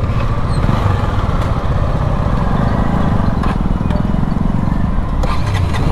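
KTM RC sport bike's single-cylinder engine running at low speed, a steady low rumble that lifts slightly in pitch about halfway through.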